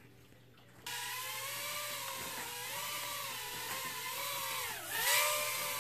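Syma X12S nano quadcopter's four tiny motors and propellers whining in flight, starting suddenly about a second in. The pitch wavers as the throttle changes, dips near the end, then rises sharply and gets louder.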